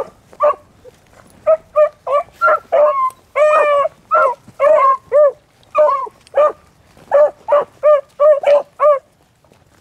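Beagles giving tongue while working a rabbit's scent trail: short, pitched barks in quick runs, with one longer bay about three and a half seconds in. The barking stops about nine seconds in.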